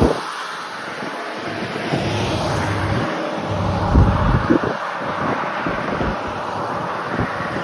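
Steady road and vehicle noise, with wind buffeting the microphone in uneven low gusts.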